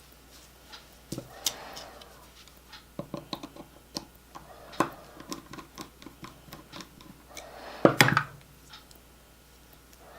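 Small tools and parts handled on a workbench: scattered light clicks and brief scrapes, with a quick run of louder clacks about eight seconds in.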